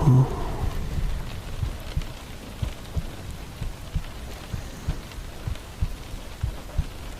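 Steady rain with low rumbles of thunder and frequent soft low thuds; a deep thud just after the start is the loudest.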